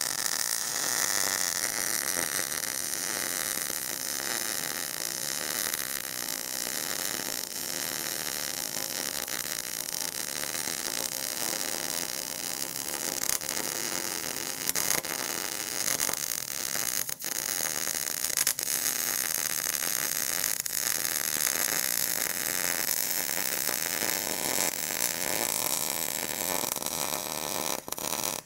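Miller 252 MIG welder with solid wire and shielding gas, set to 17.8 and 216, running one long continuous bead on steel pipe: a steady arc crackle and hiss that cuts off suddenly near the end as the trigger is released.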